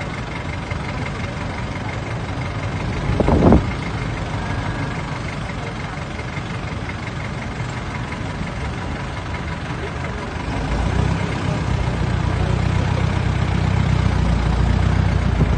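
A vehicle engine running at idle, its low steady hum growing louder from about ten seconds in. A brief louder sound stands out about three seconds in.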